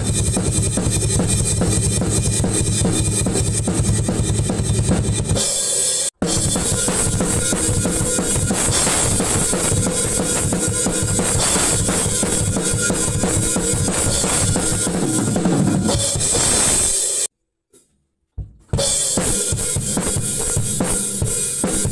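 Acoustic drum kit played hard and fast in metal styles: a power-metal beat with dense kick and cymbal strokes, a cut at about six seconds into a speed-metal beat, then a second or so of near silence before a glam-metal groove starts near the end.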